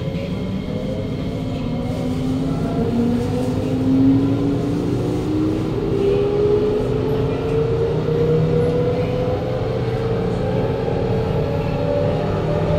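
Kawasaki Nippon Sharyo C751B metro train's traction motors whining as the train accelerates, several tones climbing steadily in pitch over the rumble of the running train. This is the strong robotic motor sound of this car.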